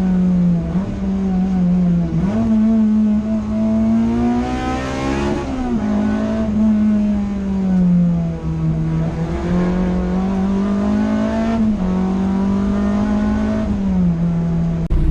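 Honda DC2 engine pulling under way. Its pitch climbs gradually and then drops sharply several times as the gears are changed.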